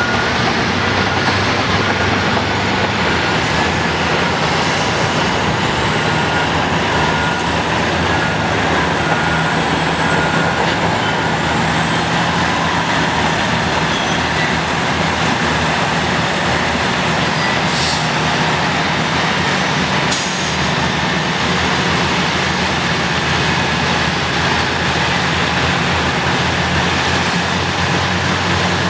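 Caterpillar 657 twin-engine scrapers and a push dozer working hard together while loading in a cut: a dense, steady drone of heavy diesel engines under load. A back-up alarm beeps intermittently in the first few seconds.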